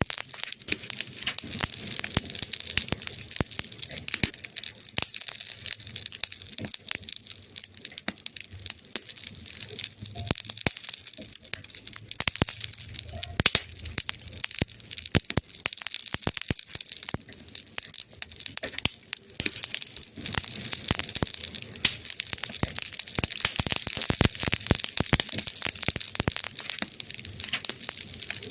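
Wood fire crackling: a dense, irregular run of sharp snaps and pops over a steady high hiss.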